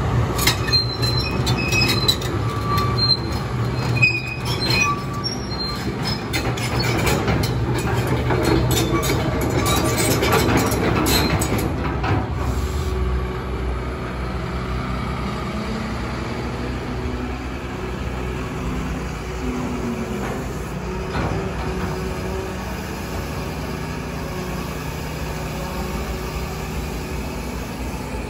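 Caterpillar 320E L hydraulic excavator running: the diesel engine holds a steady hum while the boom and arm are worked. Clanks and short high squeaks come thick over the first twelve seconds, then it settles to a quieter, steadier run.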